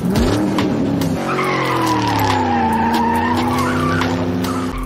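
Dubbed-in car sound effect: an engine revving up and down, then from about a second in a long tyre screech that dips and rises in pitch over a steady engine note, cutting off near the end.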